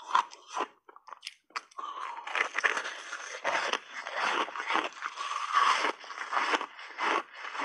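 Big bites of purple-dyed refrozen, reshaped ice coated in passionfruit pulp being crunched and chewed. A few short crunches in the first two seconds give way to dense, continuous crunching from about two seconds in.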